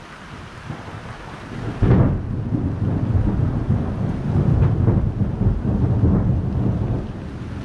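Thunder: about two seconds in, a sudden loud crack breaks into a long, deep rolling rumble with a few more cracks, easing near the end. Steady rain hisses underneath throughout.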